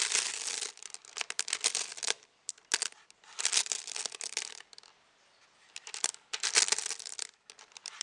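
Glass marbles clattering against each other and the sides of a plastic tub as a hand rummages through them, in several bursts of dense clicking with short pauses between.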